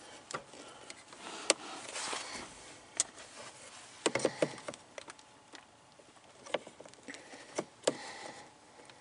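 Scattered sharp clicks and small knocks of hard plastic and metal pliers as a shifter cable end with a new bushing is worked and pressed onto the shifter pin. The clicks bunch together about four seconds in.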